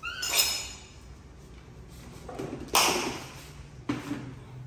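Shards of a broken ceramic plate being swept up and handled on a wooden floor: a short ringing scrape right at the start, a louder clatter of shards and hard objects a little before the three-second mark, and a lighter knock about a second later.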